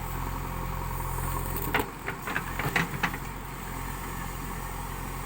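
Diesel engine of a JCB 3DX backhoe loader running steadily at low revs, with a cluster of sharp metallic knocks and clatters about two to three seconds in.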